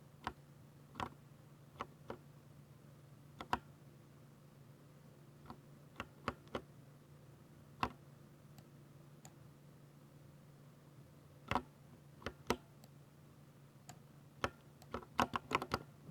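Keystrokes on a Ducky 60% mechanical keyboard with silver switches: single keys pressed sparsely and irregularly, then a quick flurry of strokes near the end, over a faint steady low hum.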